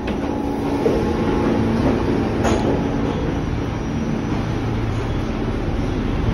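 Steady hum and rumble inside a stalled New York City subway car, with a single sharp clunk about two and a half seconds in.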